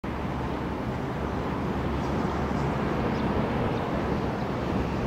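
Airbus A330-300 with Rolls-Royce Trent 700 engines on final approach, giving a steady distant jet rumble at approach power.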